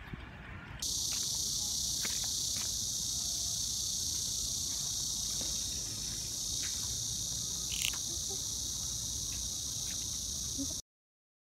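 A chorus of cicadas makes a steady, high-pitched buzz. It starts suddenly about a second in and cuts off abruptly near the end, with one brief chirp partway through.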